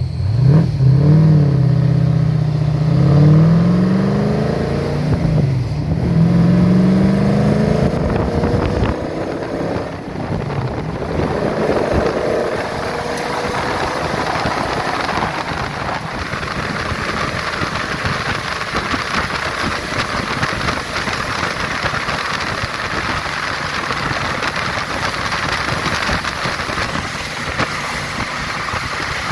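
A vehicle engine accelerating through the gears: its pitch climbs and drops back with each shift, several times in the first nine seconds or so. After that a steady rush of wind noise on the microphone drowns it out as speed builds.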